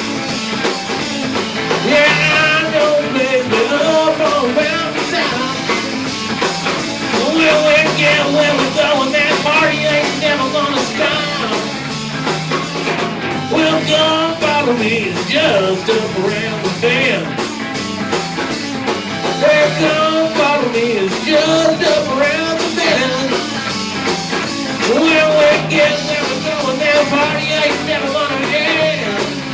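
Live rock band playing with electric guitars, bass and drums, a wavering lead line bending up and down over the steady backing.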